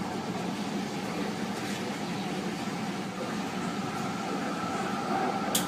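A steady mechanical hum with a faint constant whine, and a short high click near the end.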